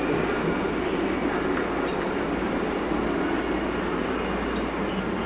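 Tram running past close by, a steady rumble that eases off near the end.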